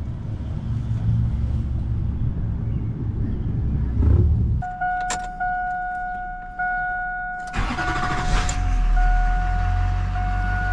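GMC diesel truck engine running, then cutting off abruptly, while a steady electronic warning chime sounds from the dash. About three seconds later the starter cranks for about a second and the diesel fires, settling into a low, steady idle.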